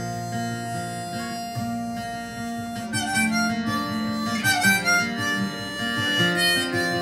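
Harmonica playing an instrumental break over strummed acoustic guitar and electric guitar, live band music, with livelier sliding notes in the middle.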